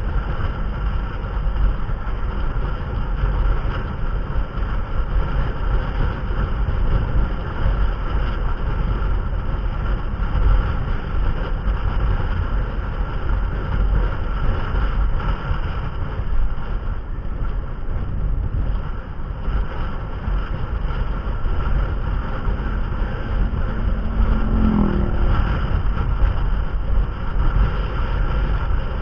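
Motor vehicle on the move, most likely a motorcycle: steady engine and road noise with wind rushing on the microphone, and a brief higher tone about 25 seconds in.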